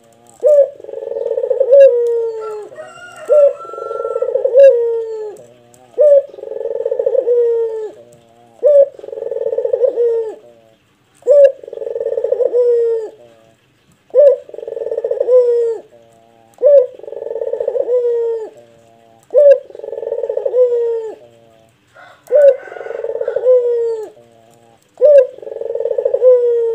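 Caged barbary dove (Indonesian 'puter') cooing over and over, a deep voice that keepers call 'ngebas': each call is a short sharp note run into a long, low coo that drops at its end, repeated about every two and a half seconds.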